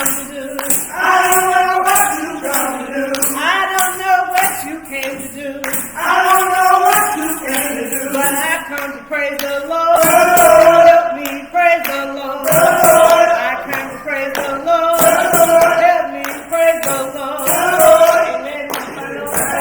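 Voices singing a gospel song, with a tambourine shaken in a steady beat.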